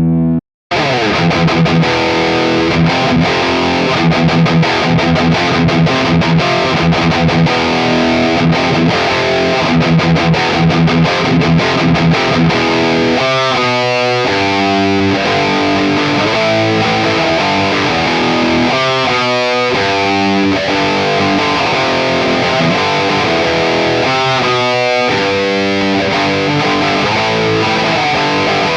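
Gibson Les Paul Special SL electric guitar played with distortion. It cuts out briefly just after the start, then comes fast picked notes, and from about halfway a riff of ringing chords.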